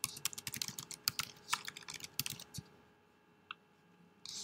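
Typing on a computer keyboard: a quick run of key clicks for about two and a half seconds, a pause, then typing starts again near the end.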